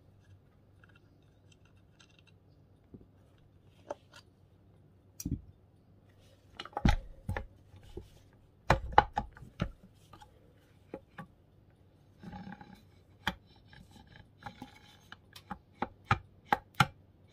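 Metal knocks, clicks and clanks of an old grinder being handled and worked on by hand, starting a few seconds in and coming in irregular clusters, with a short scrape partway through.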